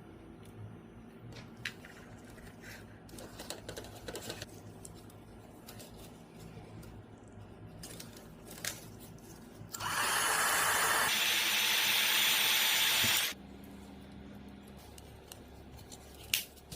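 Small clicks and rustles of handling, then a loud, steady hissing tool noise starting about ten seconds in and lasting about three and a half seconds, its tone shifting partway through.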